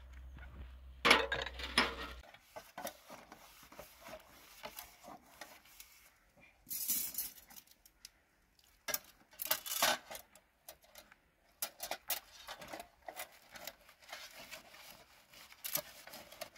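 Metal dishes, bowls and skewers being washed by hand in metal basins: irregular clinks and clatters of metal on metal, loudest about a second in, with scrubbing in between.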